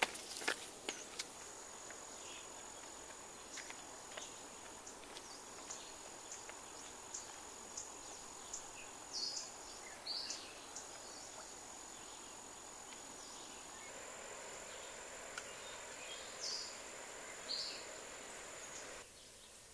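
A steady, high-pitched insect trill holding one pitch, with scattered short chirps and a few light clicks. The trill stops abruptly near the end.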